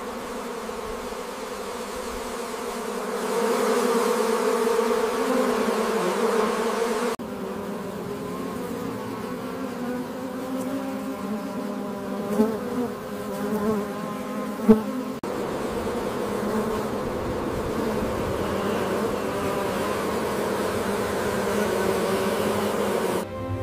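Honeybees buzzing in a steady, dense drone of many bees around the hives. The hum changes abruptly twice, and a few brief louder peaks come near the middle, the sharpest about fifteen seconds in.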